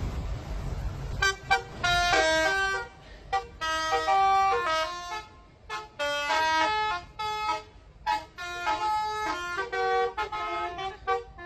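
Bus telolet horn, a multi-tone air horn, playing short melodic phrases of stepping pitches. It starts about a second in and repeats several times with brief pauses between the tunes.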